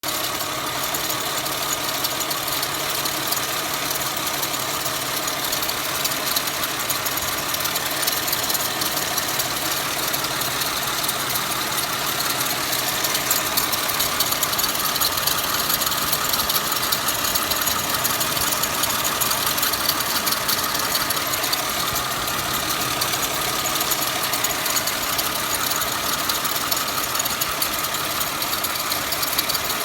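Mercedes-Benz W210 engine running steadily, with abnormal noise from the accessory drive belt tensioner pulley bearing: the tensioner bearing is faulty.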